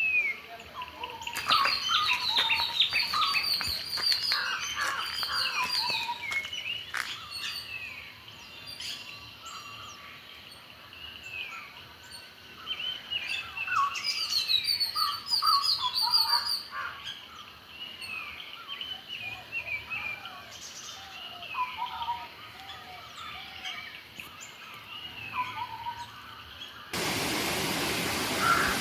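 A chorus of tropical forest birds, many overlapping whistles, chirps and trills. About 27 s in it cuts to a steady rush of falling water.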